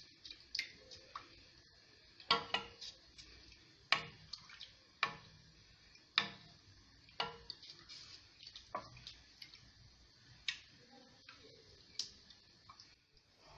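A ladle knocking and scraping against the sides of a pot while thick asida porridge is stirred, giving sharp irregular clicks about once a second, sometimes two or three in quick succession.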